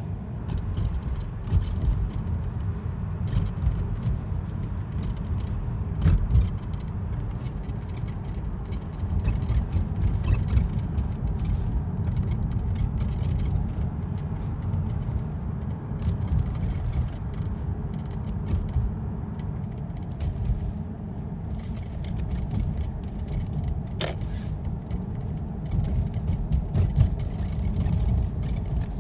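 Steady low road rumble inside a 2008 Lexus GS450h's cabin while driving, with a few sharp clicks, one about six seconds in and one near the end: the noise coming from the dashboard.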